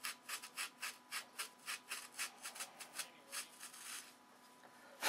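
Sandpaper wrapped on a thin hardwood stick rubbing back and forth in short, quick strokes, about four or five a second, sanding the pin-pocket notch for a pocket hinge into a wooden flap's trailing edge. The strokes stop about three and a half seconds in.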